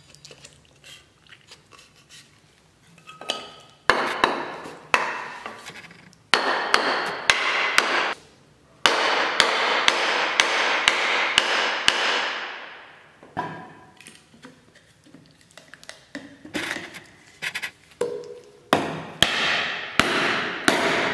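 Wooden mallet striking the end of an axe handle to drive the forged mortise axe head tight onto its wooden haft. A series of sharp knocks comes in groups, with a quick run of two or three blows a second around the middle.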